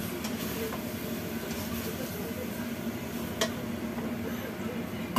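Stir-fried chicken sizzling lightly in a wok as a spatula stirs it, over a steady low hum. One sharp clink comes about three and a half seconds in as the wok is handled.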